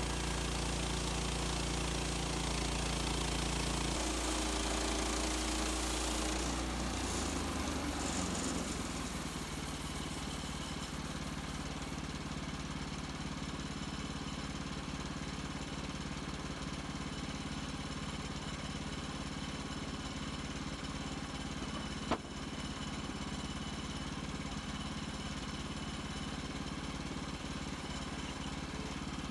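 HM130 Max portable bandsaw mill running, its blade cutting through a white pine log with a loud hiss that fades out about seven or eight seconds in. The engine then runs on steadily, with a single sharp click later on.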